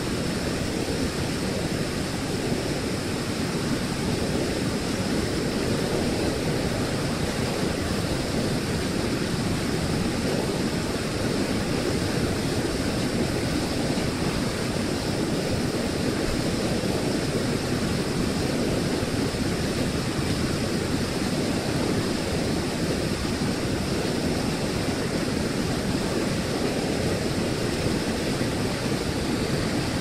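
Water pouring over a weir and churning through foaming rapids below it: a steady, unbroken rush of white water.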